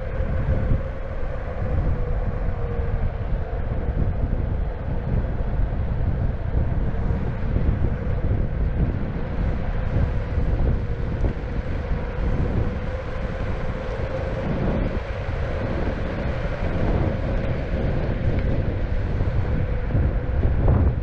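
Electric skateboard riding: wind buffeting the microphone over the rumble of the wheels on asphalt, with a steady whine from the direct-drive hub motors that drifts slightly in pitch.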